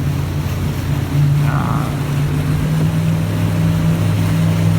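Motorboat engine running steadily, a low hum whose pitch shifts a little about a second in and again near three seconds.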